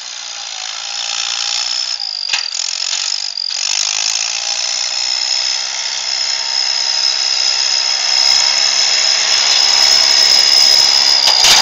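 Fiat 55-56 DT tractor's diesel engine and drivetrain running as the tractor drives closer, growing louder, with a steady high-pitched whine over the engine noise.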